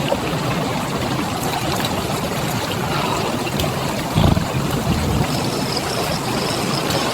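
Running water of a forest stream, a steady rushing hiss, with a brief low thump about four seconds in.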